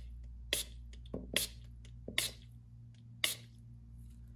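Pump-spray bottle of body mist sprayed four times in short hissing puffs, about one a second, into the water reservoir of a small portable USB humidifier.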